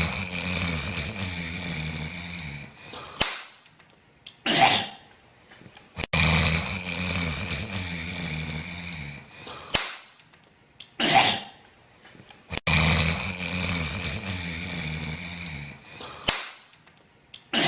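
A person snoring very loudly in a long rasping snore of about three seconds, then a short sharp burst of sound a second later. The pair repeats three times, about every six and a half seconds.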